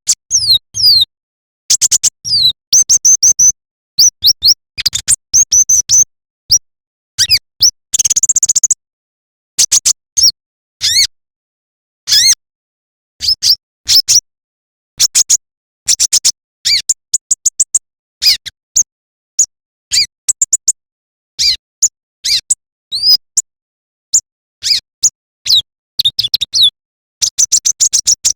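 Konin (kolibri ninja) sunbird singing in full voice: rapid bursts of thin, high chirps and sliding trills, broken by short pauses.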